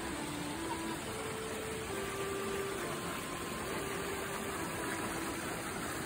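River water rushing steadily over and between rocks in a shallow rocky stream. Slow background music of long held notes, likely strings, plays over it.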